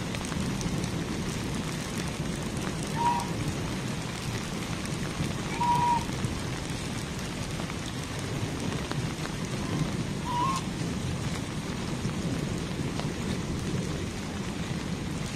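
Steady rain falling, with a domestic goose giving a short honk three times.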